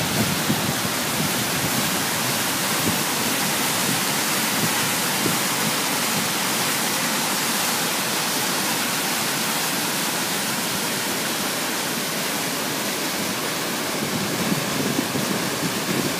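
Narada Falls' water rushing steadily as an even, unbroken roar of white noise.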